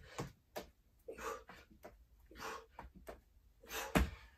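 A man breathing hard in short, heavy exhalations about once a second, winded partway through a set of dumbbell burpees. Near the end there is a single sharp thud on the floor.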